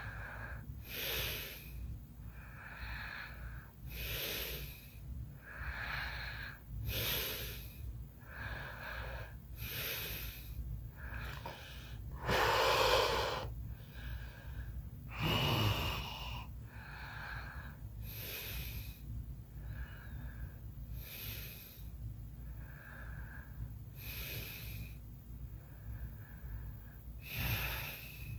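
A sleeping person's noisy breathing with light snoring, a slow, even rhythm of about one breath every three seconds, each breath rasping through the nose and throat. About halfway through come two louder snorts, the second dropping in pitch.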